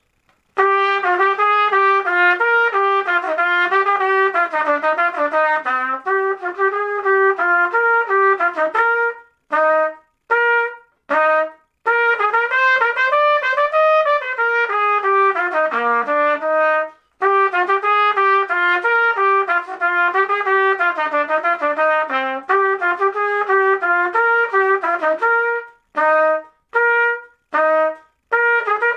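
Solo Bb trumpet, assembled from an Olds Ambassador valve block, a Lawler bell and a Carol 5000 lead pipe, played unaccompanied in a quick melodic line of many short notes. About nine seconds in and again near the end the running line breaks into a few short, separated notes.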